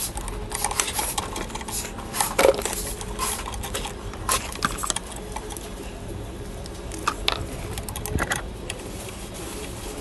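Ratchet and 10 mm socket clicking in short quick runs, with light metal tool clinks, as the bolts holding a golf cart engine's RPM limiter are backed out.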